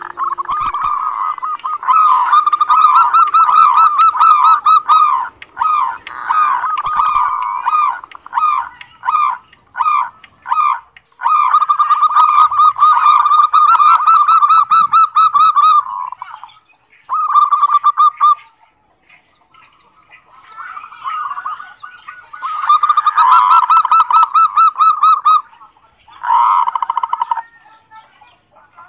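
Zebra dove (perkutut) giving its rattling "ngerot" (kerot) call: fast runs of short, staccato coo notes, in several bouts with a short pause about two-thirds of the way through.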